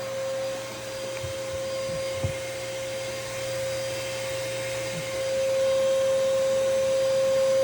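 Dyson DC33 Multi Floor upright vacuum cleaner running, a steady motor whine over airflow hiss, with a few soft knocks. It gets louder about five and a half seconds in.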